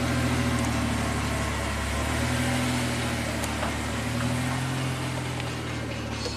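The 1991 Ford Probe's 3.0-litre Vulcan V6 engine running steadily, its pitch rising a little about four seconds in.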